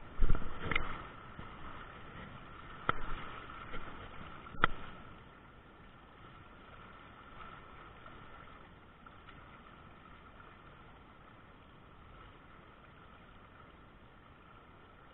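Steady rush of river water over shallow riffles, with a few sharp knocks in the first five seconds, the loudest near the start.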